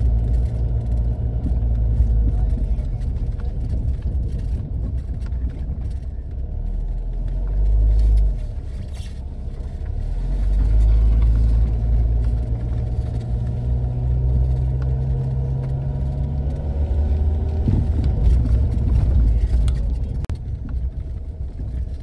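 Car engine and road noise heard inside the cabin while driving: a low, steady drone that drops away briefly about eight seconds in, then builds again.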